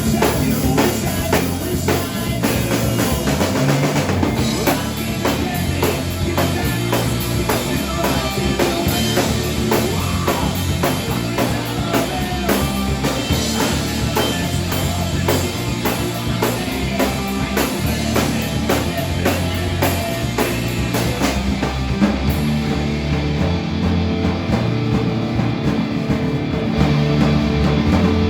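Rock music with a full drum kit keeping a steady beat under bass and guitar. The bright, hissy top end drops away about three quarters of the way through.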